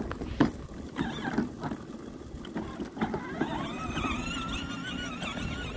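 A few knocks and clatters, then about three seconds in a small motor starts a steady whine whose pitch wavers slightly, over a low rumble.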